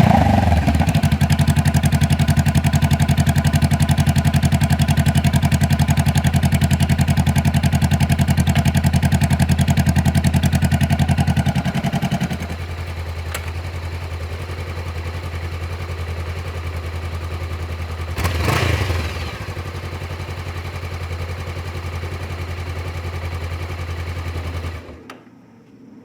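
2018 Honda CBR500R's parallel-twin engine idling steadily. It gets quieter a little before halfway. It blips the throttle once about two-thirds of the way in, and the engine shuts off near the end.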